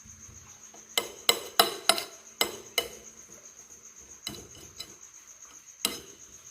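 Spoon clinking and tapping against a plate while pressing and smoothing moist corn cuscuz: a quick run of sharp clinks, then a few fainter ones.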